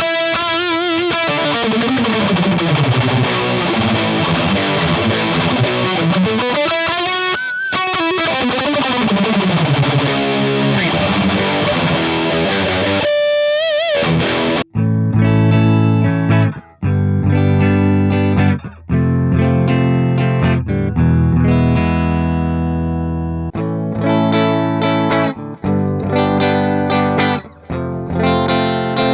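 Epiphone Les Paul Custom electric guitar played through distortion. It starts with sustained lead notes with bends, then about halfway through switches abruptly to a choppier chord riff with short stops and a darker tone.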